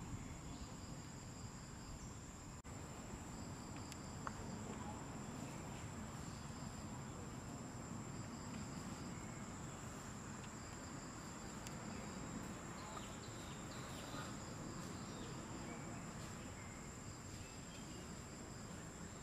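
Insects calling steadily in one high, even tone, with a second, softer insect call coming and going, over low outdoor background noise.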